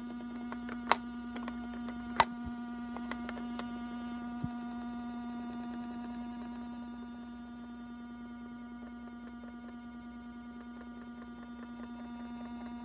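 A 40-year-old washing machine running a drum clean cycle: a steady electrical hum, with a few sharp clicks in the first few seconds, two of them loud.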